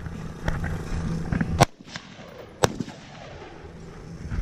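Bump-stock-fitted AR-15-style rifle firing single shots: a fainter shot about half a second in, then two loud shots about a second apart. The shots come one at a time, not in a rapid bump-fire string, because the bump stock needs just the right touch.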